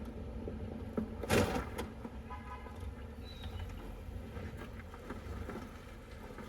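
Car running with a steady low rumble, with small clicks and one short, louder noise about a second and a half in.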